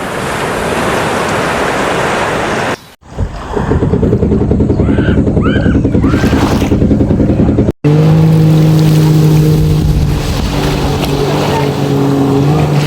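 Waves washing for about three seconds. After a cut, a motorboat engine runs, first with a fast low pulsing and then, after a second cut, as a steady hum.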